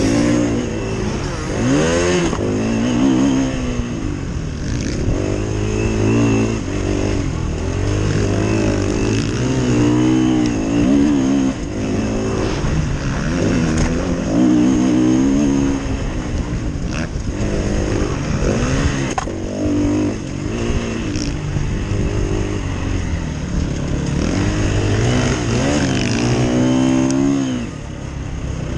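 KTM 350 EXC-F's single-cylinder four-stroke engine revving hard and dropping back over and over as the rider accelerates, shifts and brakes through the corners.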